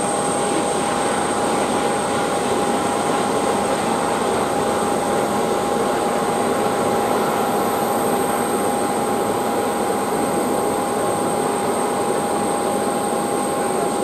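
Steady jet-turbine whine from an airliner standing at the gate: a constant high tone over an even rushing noise that does not change.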